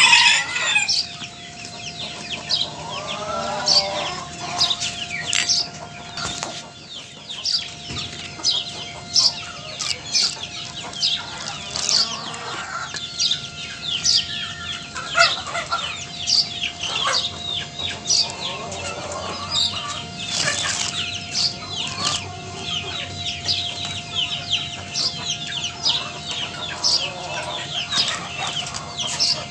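Chickens clucking and calling, with many short high chirps throughout and a faint steady tone underneath.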